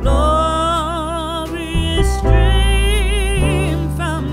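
Background music: a slow melody of held notes with vibrato over deep sustained bass notes.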